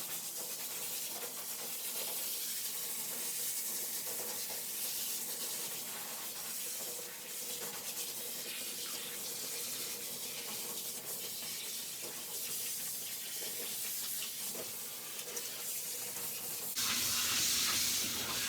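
Warm running water rinsing shampoo out of a poodle puppy's coat, a steady splashing hiss. Near the end it turns abruptly louder and brighter.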